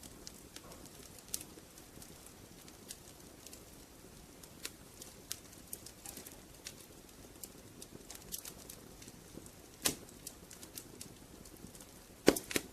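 Wood fire crackling in a fireplace: a low steady rush of flames with scattered sharp pops and snaps, two louder ones about ten seconds in and near the end.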